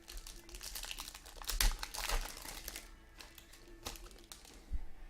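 Crinkling of a trading-card pack wrapper and cards being handled, loudest about two seconds in, followed by a couple of sharp clicks near the end.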